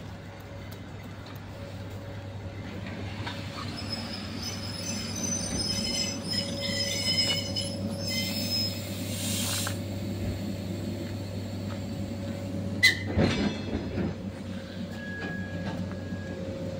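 ER2K electric multiple unit moving slowly along a platform: a steady low hum, with high-pitched wheel squeal in the middle and one sharp clack about four seconds later.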